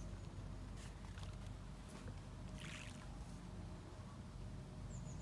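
Quiet riverbank ambience: a low steady hum with a soft hiss over it, and a faint high chirp near the end.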